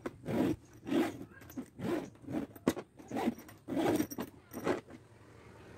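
Hard-shell suitcase zipper being zipped back and forth in short strokes, about nine in all, working the freshly repaired zipper. A single sharp click comes about halfway through.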